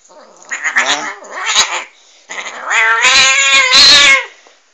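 Angry domestic cat caterwauling: two short cries, then one long, loud yowl lasting about two seconds.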